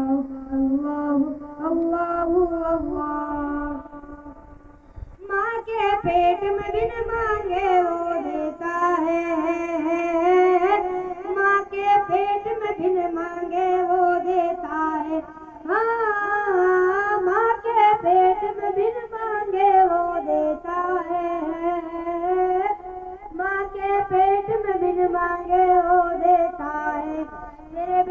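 A boy singing a hamd, a devotional song in praise of God, unaccompanied into a microphone and carried over loudspeakers. It is a long, ornamented melodic line with vibrato and a short break about four seconds in.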